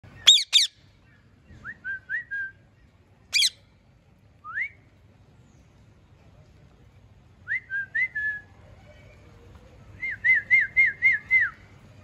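Caged rose-ringed parakeets calling: two sharp, shrill screeches right at the start and another about three seconds in, with short rising whistled notes in between, and near the end a quick run of about six whistled chirps.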